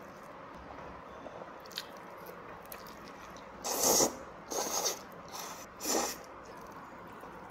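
Jjajangmyeon noodles in black bean sauce being slurped off chopsticks: a few quiet seconds with faint chewing clicks, then four loud slurps in quick succession from about three and a half seconds in.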